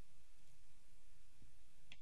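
Quiet room tone: a steady low hum and an even hiss, with a faint short click near the end.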